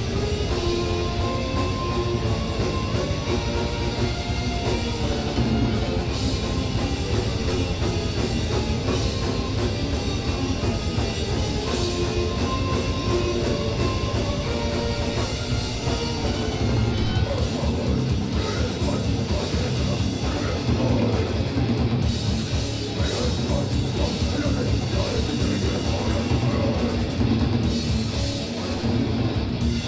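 Metal band playing live: heavy distorted electric guitars over a drum kit, with the cymbals struck at a regular beat.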